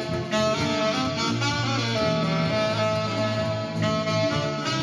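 Saxophone and acoustic guitar playing jazz live, the saxophone holding long sustained notes over the guitar's accompaniment and a low bass line.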